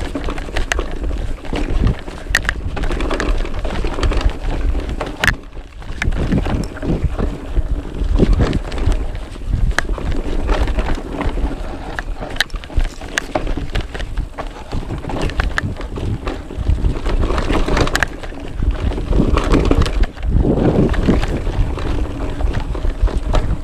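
Cube Stereo Hybrid 140 e-mountain bike descending a rough downhill trail: wind buffets the microphone over the rumble of tyres on dirt, with frequent sharp knocks and rattles as the bike hits bumps.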